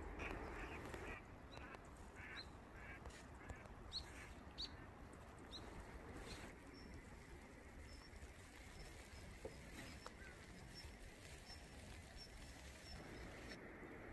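Faint bird calls: several short, high chirps in the first six seconds, then a faint run of thin high notes, over a steady low background hiss.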